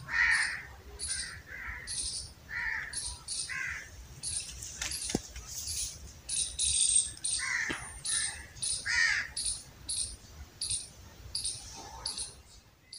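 Crows cawing in short, harsh calls, several in a row, over small birds chirping rapidly and high-pitched throughout.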